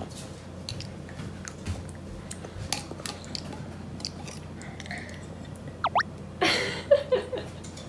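Small plastic spoon lightly tapping and scraping inside a plastic cup of yuzu tea, a few scattered clicks, then a short squeak and a slurp as the cup is tipped up to drink near the end.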